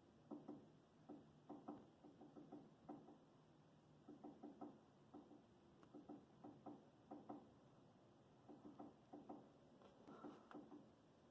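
Woodpecker pecking at wooden eaves: faint, irregular taps in quick clusters of two to four, with short pauses between the clusters.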